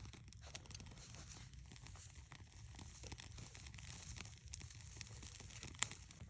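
Faint irregular crackling and rustling, many small clicks over a low rumble, with one sharper crack near the end.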